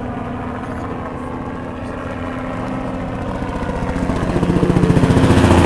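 Small helicopter flying overhead: a steady engine and rotor drone with a fast beat from the blades, growing louder from about four seconds in as it comes closer.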